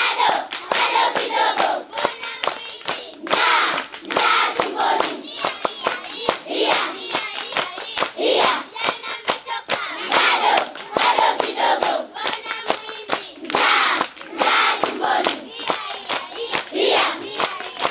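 A crowd of schoolgirls singing and shouting together while clapping their hands in a quick, steady rhythm.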